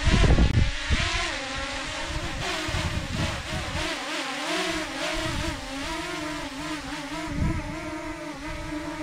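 DJI Mini 2 quadcopter's propellers whining as it hovers and manoeuvres, the pitch wavering up and down as the motors speed up and slow down. Low gusty rumbles of wind on the microphone, loudest in the first second.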